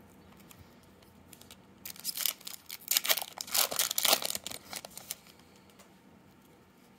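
Foil wrapper of a 2014 Bowman Draft baseball card pack being torn open and crinkled by hand, a burst of crackling rustle starting about two seconds in and lasting about three seconds.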